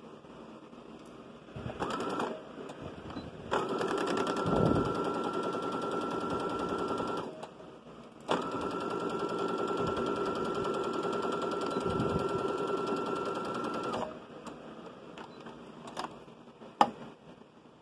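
Electric sewing machine stitching a seam: a short burst, then two longer steady runs of about four and six seconds with an even motor whine, followed by a couple of sharp clicks near the end.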